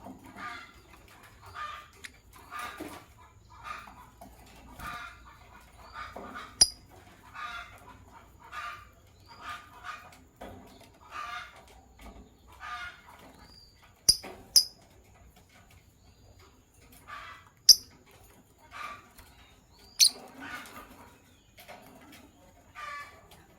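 Lovebirds chattering: a run of rough, scratchy calls about once a second, broken by five short, shrill high-pitched chirps. The chirps are the loudest sounds, one about a quarter of the way in, a pair in the middle, and two more after that.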